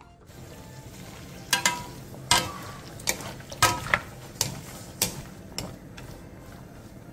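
Garlic scapes and dried anchovies sizzling in a nonstick frying pan on high heat with soy sauce and soju just added, while two wooden spatulas toss them. The spatulas knock and scrape against the pan in a quick series of sharp clacks, about nine of them, from about a second and a half in to near six seconds.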